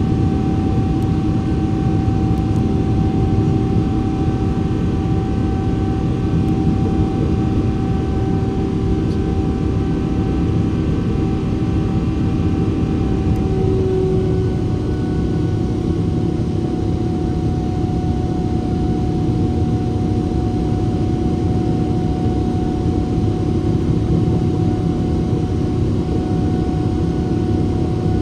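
Boeing 777-300ER's GE90 jet engines at high takeoff or climb thrust, heard inside the passenger cabin as a steady roar with a whining tone on top. The whine dips slightly in pitch about halfway through.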